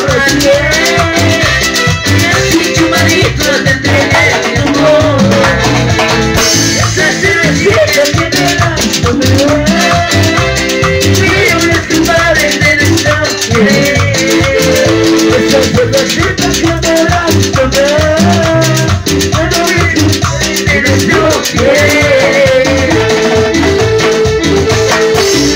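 Latin dance band playing an instrumental passage: a wavering melodic lead over bass and fast rattling percussion keeping a steady rhythm.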